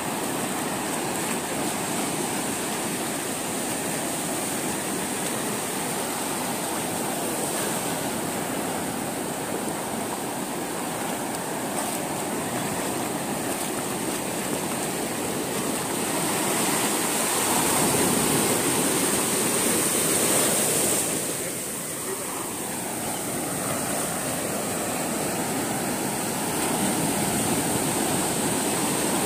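Ocean surf: small waves breaking and foaming up the wet sand in a steady rush. It swells louder for a few seconds past the middle, eases briefly, then builds again near the end.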